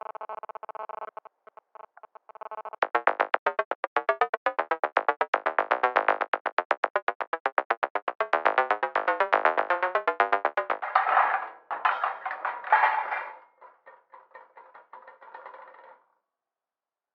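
Synthesized electronic tones, chopped into rapid stuttering pulses: a buzzy chord at first, then from about three seconds in a louder fast run of pulses that shifts in pitch. It turns noisier and smeared near the end, then fades into faint pulses and stops shortly before the end.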